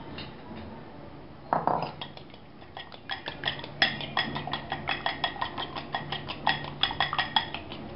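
A raw egg being beaten in a cut-glass bowl, the utensil clinking rapidly against the glass, several ringing clinks a second. A single knock comes first, about a second and a half in, then the beating starts about three seconds in.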